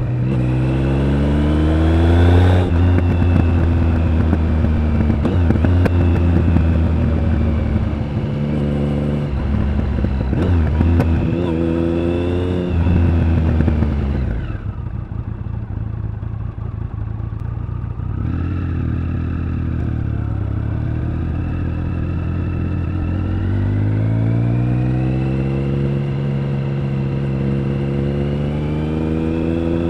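Triumph Speed Triple 1050's inline three-cylinder engine and exhaust under way, revving up and shifting through the gears in repeated rising pulls. It drops to a lower, quieter run about halfway through, then pulls up in pitch again near the end.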